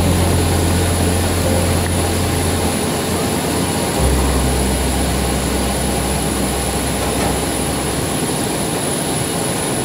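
Jet engines of a taxiing Airbus A320 running with a steady rush and a high whine. Background music with low sustained bass notes that change every few seconds plays underneath.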